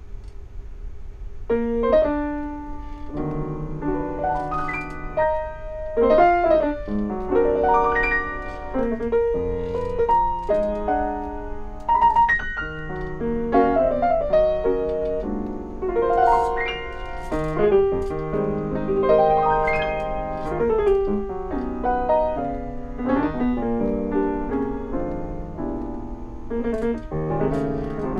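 Solo grand piano playing, beginning about a second and a half in with a run of chords and melody notes that continues throughout.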